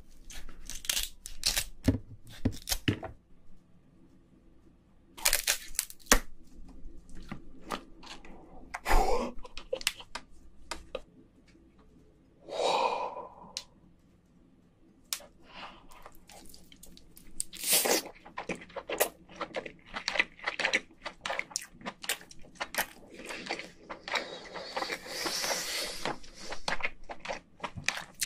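Cooked king crab legs being cut open with scissors and the shell cracked: a run of sharp crunches and cracks coming in clusters with quiet gaps. Close-miked chewing of the crab meat.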